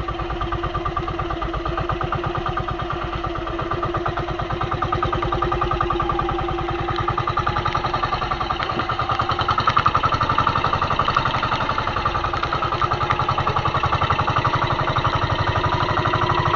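Small fishing boat's engine running steadily with an even, rapid firing beat, getting a little louder partway through.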